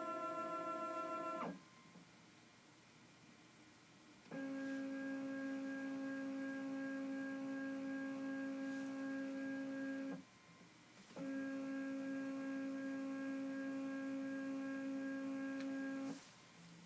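CNC Shark Pro Plus Z-axis stepper motor driving the lead screw in three runs, giving a steady whine each time. The first run stops about a second and a half in. The second and third runs, at a lower pitch, each last about five to six seconds, with a short pause between them.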